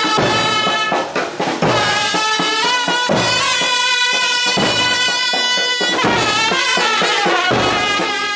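Music: a sustained melody over drums.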